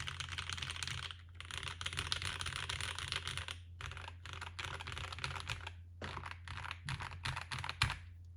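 Mode 80 mechanical keyboard being typed on fast: lubed Mode Reflex linear switches on an FR4 plate under blank ABS Cherry-profile keycaps, a rapid stream of keystrokes broken by a few short pauses and stopping just before the end.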